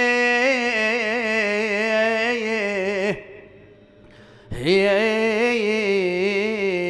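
A man's voice chanting an Arabic mourning elegy in a long melismatic line of wavering held notes. It breaks off about three seconds in for a second and a half, then a second drawn-out phrase follows.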